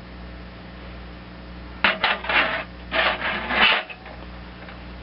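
Needle-nose pliers working a small governor spring off the carburetor linkage: metal scraping and rubbing in two short spells about two seconds in.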